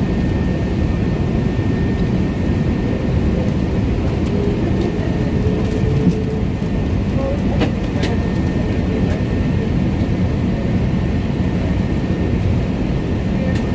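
Cabin noise inside an Airbus A380 on the ground: a steady low rumble from its Rolls-Royce Trent 900 engines running as the jet taxis, with a faint steady whine above it. A couple of light clicks come about halfway through.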